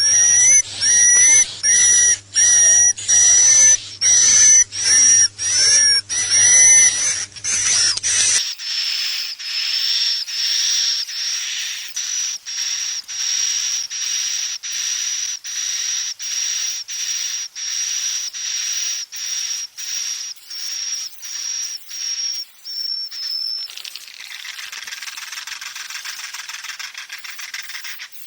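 Swiftlet lure calls: loud, high whistled chirps repeating about every half second for the first eight seconds, then a softer, faster run of high twittering chirps, and a steady hiss in the last few seconds.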